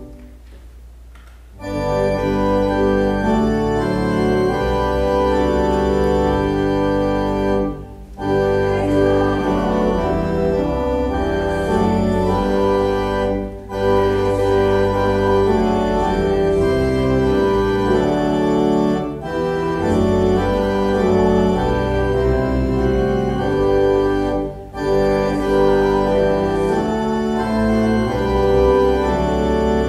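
Organ playing loud, sustained chords in phrases, with a short break between phrases about every five to six seconds. It comes in full about two seconds in, after a softer passage.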